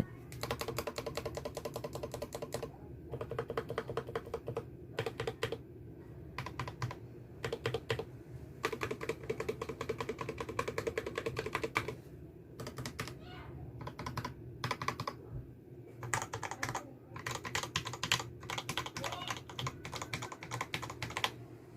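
Mechanical keyboard being typed on: fast runs of key clicks broken by short pauses, the switches under each key clacking with every press.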